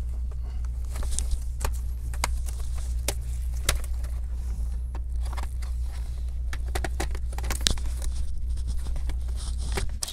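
Scattered clicks and light knocks of a laptop's plastic chassis and hinge being pushed and worked apart by hand, over a steady low hum.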